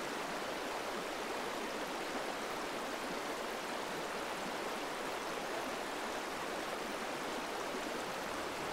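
Shallow, rocky stream flowing: a steady, even rush of running water.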